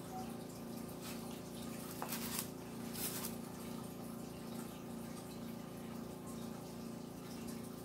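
Steady low hum with a faint hiss underneath. Two brief soft scrapes come about two and three seconds in, as a metal palette knife spreads wet acrylic paint over canvas.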